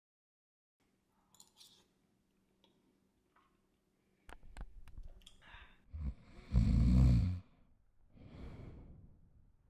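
A few sharp clicks, then a man's heavy sleeping breaths: one loud snoring breath lasting about a second, followed by a softer breath.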